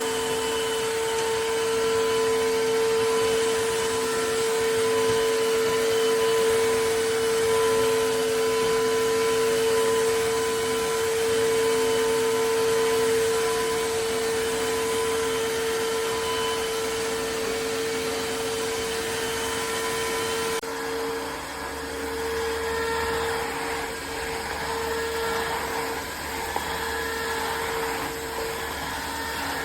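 Tineco Floor One S3 cordless wet-dry vacuum mop starting abruptly and running with a steady motor whine over a rushing suction noise. About two-thirds of the way through the sound shifts and a low hum is added.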